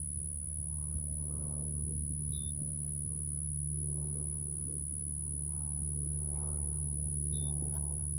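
A steady low mechanical hum, like a motor running, with a thin steady high whine over it. Faint soft scuffs come and go, from soil being shovelled back into the hole and packed down.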